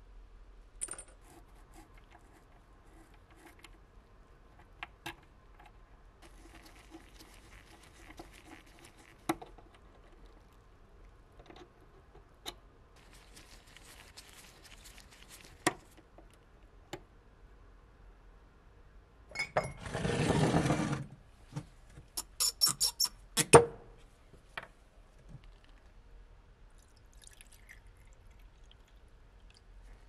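Small metal clicks and taps of pliers working on a vintage gun-shaped lighter's parts. About two-thirds of the way through comes a burst of hiss lasting about a second, then a quick run of sharp clinks as small metal parts land in a glass jar.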